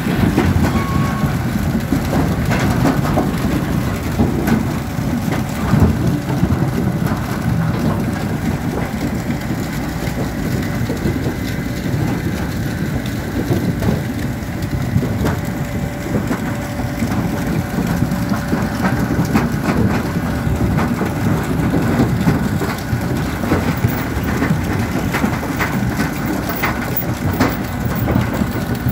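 Grimme Rexor 630 self-propelled sugar beet harvester unloading its bunker on the move: a steady clatter of sugar beets tumbling off the unloading conveyor into a trailer, over the low running of the machine.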